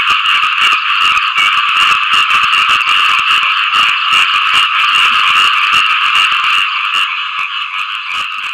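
A dense chorus of small frogs (khiat i-mo) giving mating calls: many rapid clicking, rasping notes run together into a continuous pulsing din. It thins and grows a little quieter near the end.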